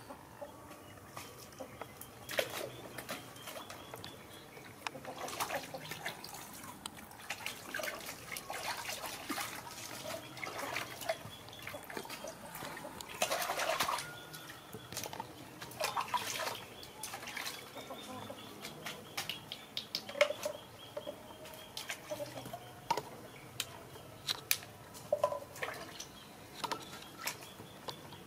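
Water splashing and dripping in a plastic tub as a baby monkey is washed by hand, with a louder splash about halfway through. Short animal calls come and go in the background.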